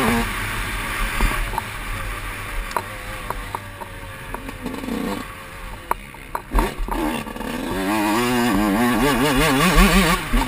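Motocross dirt bike engine revving as it is ridden round a dirt track, with scattered knocks from the bike over the bumps. The revs drop off around the middle, then climb and waver up and down near the end under hard acceleration.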